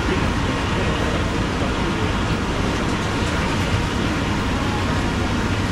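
Steady low rumble and hiss of a seafood stall's background noise in a wet market, with no single sound standing out.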